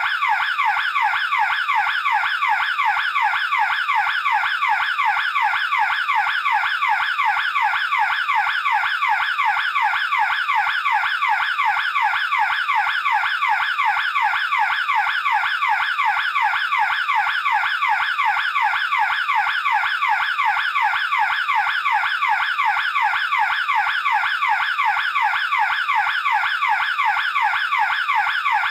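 Burglar alarm sounder wailing continuously, a fast pitch sweep repeating a few times each second at a steady loudness.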